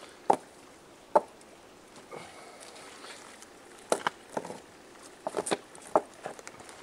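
Stones knocking against rock as they are set in place by hand: a series of irregular sharp clacks, the loudest two within the first second or so.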